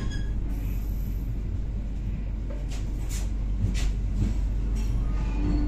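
Inside a passenger train coach rolling slowly into a station: a steady low rumble from the running gear, with a few sharp clicks from the wheels and coach about three to four seconds in.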